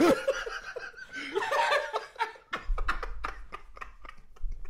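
Several men laughing hard: a loud burst of laughter at the start that breaks into quick, breathy bursts of laughter.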